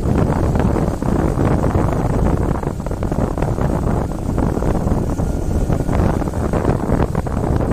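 Wind buffeting the microphone on a moving motorcycle, a steady low rumble with the motorbike running underneath.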